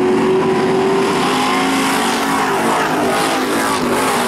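Pack of Super Street stock cars racing, several engines running hard with their pitches rising and falling as they pass. One car comes by close near the end.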